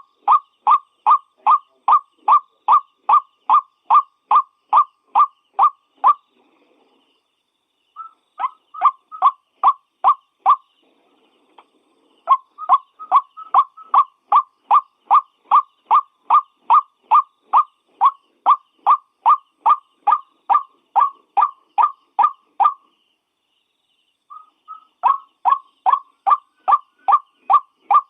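White-breasted waterhen calling: a long series of the same short note repeated a little over twice a second, broken by brief pauses about six, eleven and twenty-four seconds in.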